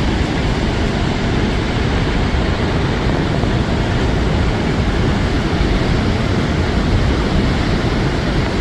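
Waterfall rushing: a steady, loud wash of falling water with no breaks.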